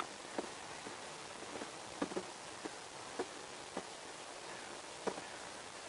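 Thick 75W-90 gear oil being poured slowly from a plastic jug into a small funnel: a faint hiss with soft, irregular glugs and plops, about eight of them.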